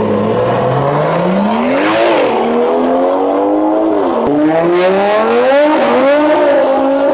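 BMW M car launching for a drag run: its revs are held steady for a moment, then the engine climbs hard in pitch through the gears, with a quick drop at each upshift, about three shifts.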